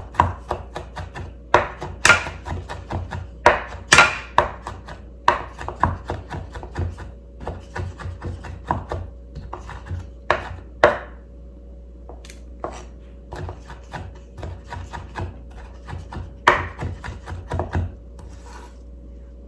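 Knife chopping on a wooden cutting board, sharp knocks in quick uneven runs that stop near the end.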